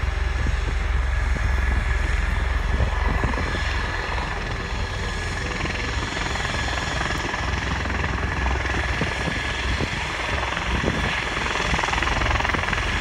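Bell V-280 Valor tiltrotor running on the ground with its proprotors tilted upright in helicopter mode. It makes a steady rotor and engine noise with a high, even whine over a deep rumble.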